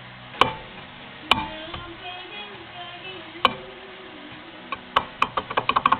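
Brake drum clacking on its hub as it is handled: three single metallic knocks, then a quick run of clicks near the end as it is rocked, showing a little play still left in it.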